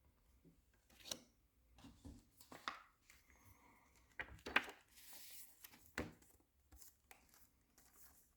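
Faint packaging being handled by hand: scattered light knocks and clicks with crinkling and rustling, and a longer scraping rustle about five seconds in.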